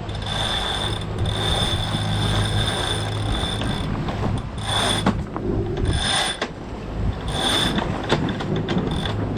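Sailboat sheet winch being worked with a winch handle, its pawls ratcheting and its drum turning in several spells as the genoa sheet is handled.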